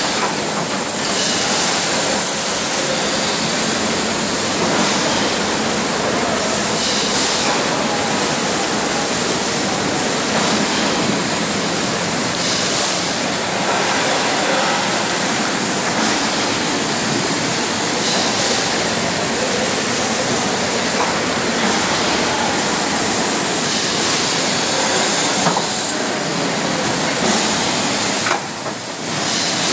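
Bottle shrink-wrap packing line machinery running in a water bottling plant: a steady, dense, loud hiss with no clear rhythm. The hiss dips briefly near the end.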